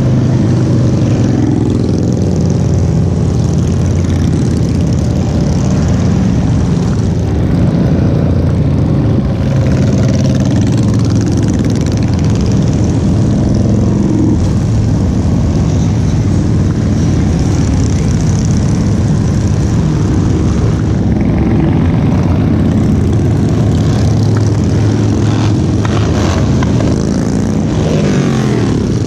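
A procession of motorcycles riding past one after another, their engines running in an unbroken, loud stream. Near the end one passes close and its engine note sweeps past.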